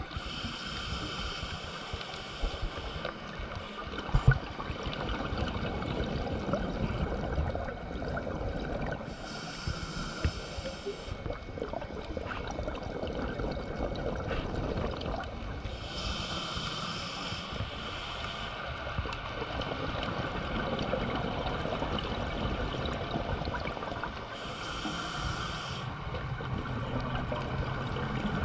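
Underwater ambience picked up through a dive camera's housing: a steady low rumble, with a breathy hiss of scuba exhaust bubbles about every seven to eight seconds, each lasting around two seconds. A single sharp knock comes about four seconds in.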